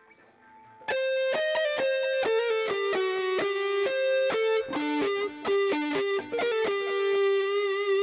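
A distorted electric guitar plays a solo single-note melody. Quick picked notes start about a second in, and it settles on a long held note near the end.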